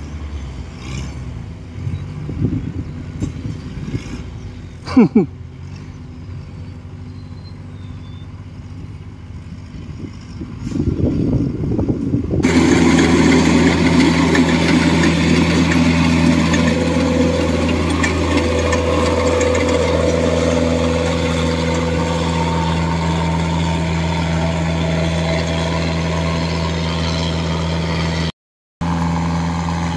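A quiet engine with one brief sharp sound about five seconds in, then a sudden change to the loud, steady running of a Kubota DC105X combine harvester's diesel engine through its modified exhaust, working at high revs while it cuts rice. The sound drops out briefly near the end.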